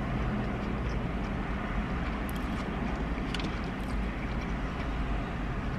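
Steady low rumble and hiss of a car heard from inside the cabin, with a few faint clicks.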